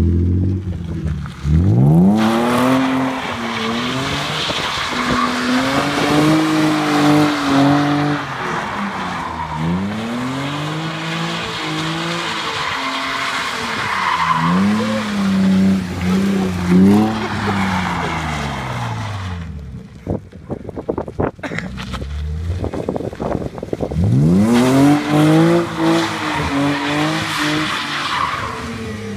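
BMW E36's M50B25 2.5-litre straight-six revving up and down again and again while the rear tyres squeal and skid through long drifts. About two-thirds through there is a quieter lull, then another burst of revving and tyre squeal near the end.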